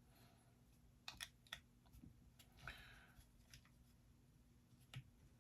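Faint, scattered clicks and a brief rustle from small parts being handled at a workbench: a few sharp clicks about a second in, a short rustle in the middle, and one more click near the end.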